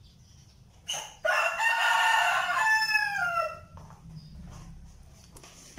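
A rooster crowing once, one long call of about two and a half seconds that drops in pitch at the end.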